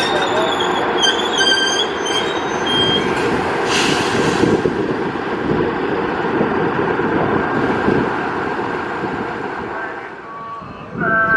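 KAI CC206 diesel-electric locomotive passing slowly at close range: a steady engine and wheel rumble, with thin high wheel squeals over the first few seconds and a short hiss about four seconds in. The rumble fades near the end.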